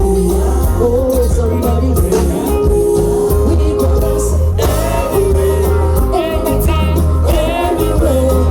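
Amplified music with a heavy bass beat and a singing voice, livelier from about halfway through.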